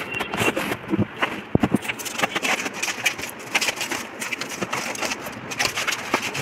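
Cardboard carton being lifted off and plastic stretch wrap crinkling and tearing as it is cut and pulled, with scattered knocks and clicks.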